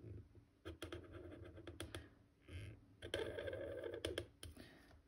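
Washi tape being pulled off the roll and pressed onto a postcard: two spells of crackly rasping, each about a second long, with small clicks around them.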